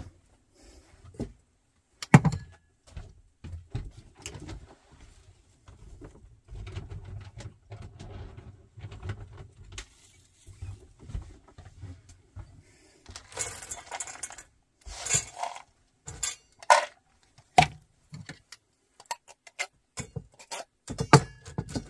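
Dog food being dished up in a stainless steel bowl: a spoon clinking and scraping against the bowl and an opened can of wet dog food, with kibble rattling in the bowl. The sharpest clink comes about two seconds in, with a busier run of scraping and clinks past the halfway mark.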